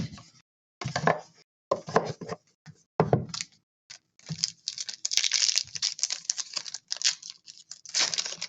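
Plastic wrapping on a trading-card box being handled and torn open: a few short rustles, then about four seconds in a long run of continuous crinkling and tearing.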